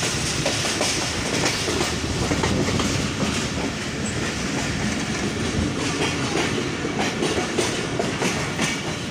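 Moving passenger train heard from inside its carriage: the steady rumble of the running coaches, with wheels clicking over the rail joints.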